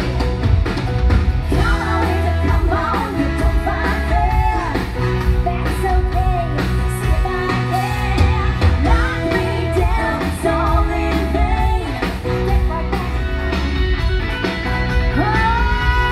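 Live band playing an upbeat 1980s-style rock-pop song, a singer over electric guitars and a steady heavy beat.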